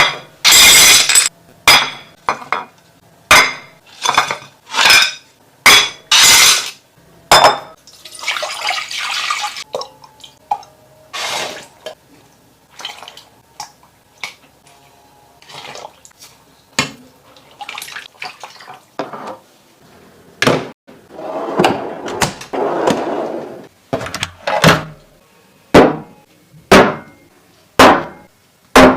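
Kitchen food-preparation sounds: bowls, plates and utensils clinking and knocking, with a stretch of liquid pouring or water running twice.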